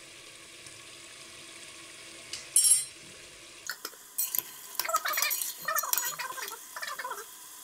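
A metal spatula scraping and stirring frying masala in a large aluminium pot, with squeaky, wavering scrapes against the pot, over a faint steady sizzle. A single sharp clink about two and a half seconds in is the loudest sound.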